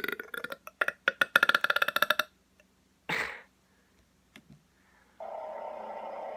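A person burping: a croaky, rapidly pulsing burp lasting about two seconds, a short breathy burst about three seconds in, and a long steady burp starting about five seconds in.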